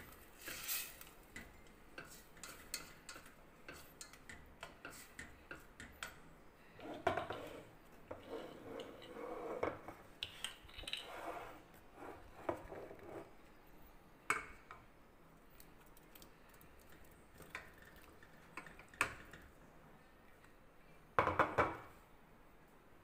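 Kitchen utensils clinking and knocking against a pan and dish as meatballs are put into the sauce, in scattered taps with some scraping, and a short burst of rapid clatter near the end.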